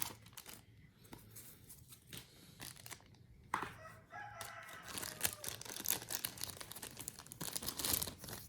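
Many quick clicks and rustling handling noises. About halfway through, a drawn-out call-like sound wavers in pitch for about a second and a half.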